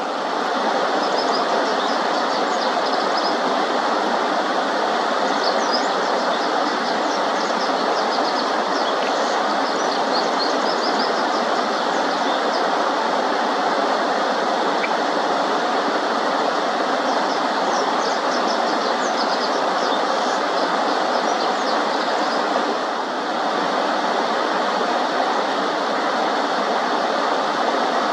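Steady rush of water over a shallow stream, with a Japanese wagtail singing its complex, varied song in several short bursts of high notes over it.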